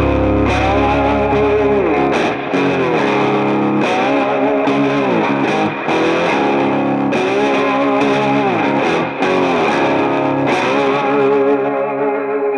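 Background rock music led by a distorted electric guitar, playing a repeating phrase with bent notes.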